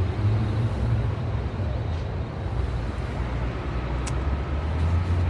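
Steady low rumble of outdoor city background noise, with a single click about four seconds in.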